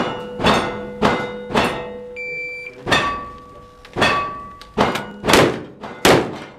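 A rapid string of about nine gunshots, roughly half a second apart at first with short pauses between groups, fired at steel plate targets. The hit plates ring on between the shots.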